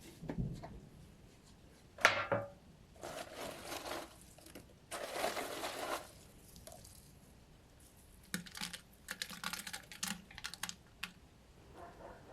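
Workshop handling noises from working on a rusty butcher knife: a sharp knock about two seconds in, two scraping sounds of a second or so each, then a run of light clicks and taps.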